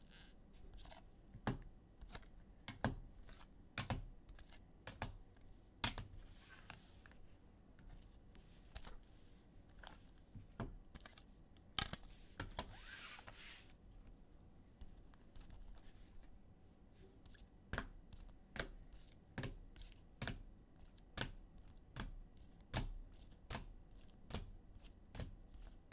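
Sharp clicks and taps, irregular at first, with a short papery rustle about twelve seconds in. From about two-thirds of the way through, the taps come evenly, nearly two a second.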